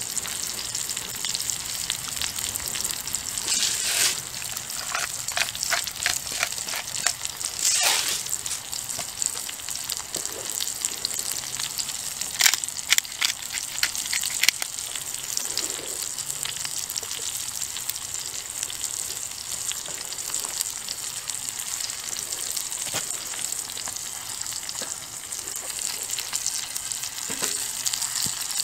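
Eggs and sausages frying in a cast iron skillet over a small wood-burning stove: a steady sizzle with scattered crackling pops that come in clusters every few seconds.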